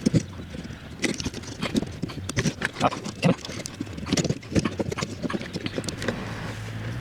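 Irregular clicks, knocks and rattles of a car window regulator's metal rails, cables and plastic guides being handled and worked by hand. A low steady hum comes in near the end.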